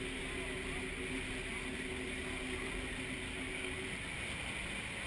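A Maid of the Mist tour boat under way: its engines run with a steady hum over the rush of water churned up in its wake. The hum drops away about four seconds in, leaving the water noise.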